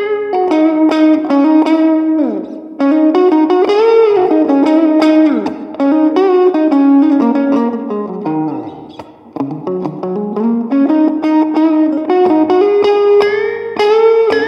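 Electric guitar playing a melody of single plucked notes with string bends and slides, heard through a Fender Passport Mini 7-watt amplifier on a preset tone. A long downward slide in pitch, getting quieter, comes about eight to nine seconds in.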